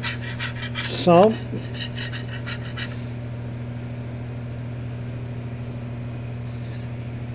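Steel putty knife scraping and scooping tarry, grease-like sludge out of the cast aluminium sump of a small REO engine, short rasping scrapes over the first few seconds. A steady low hum runs underneath throughout.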